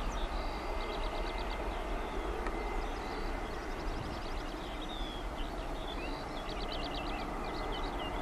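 Steady distant jet engine noise from an Airbus A320-family airliner moving away down the runway. Songbirds trill over it several times in short runs of rapid high chirps.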